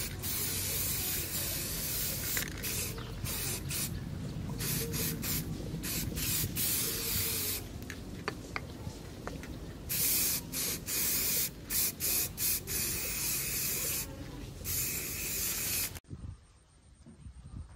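Hissing spray, steady at first with brief breaks, then a string of short bursts, and cut off abruptly near the end.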